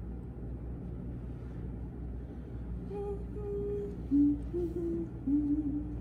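A woman humming a slow tune of held notes, which begins about halfway through, over a steady low hum in the room.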